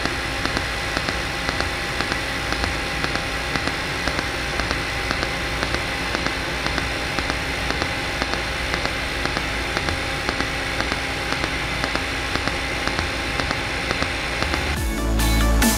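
Pulsed TIG welding arc from a mechanized torch, with the pulse synchronized to the torch's oscillation: a steady hiss and buzz with a regular pulse a few times a second. Electronic music comes in near the end.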